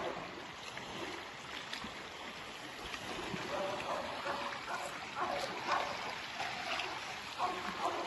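Outdoor lakeshore ambience: a steady rush of wind with small waves lapping on the lake, and short faint pitched sounds coming and going through it.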